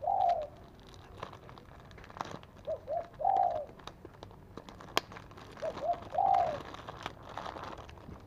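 A dove cooing in a repeated phrase of two short notes and a longer one, about every three seconds, over the crinkle of a plastic bag being untied by hand. A single sharp click comes about halfway through.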